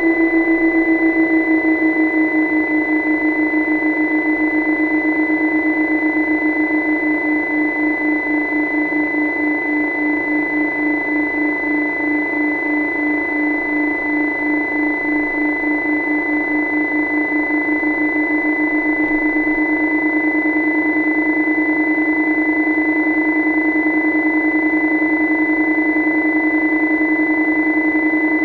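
A steady mechanical hum, heard underwater, with a fainter high steady whine above it. The hum pulses in a wavering beat that is clearest through the middle.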